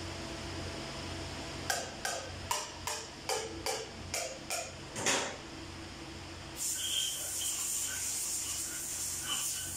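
Metal parts clinking about nine times over three seconds, each with a short ring. About seven seconds in, a steady hiss of compressed air begins.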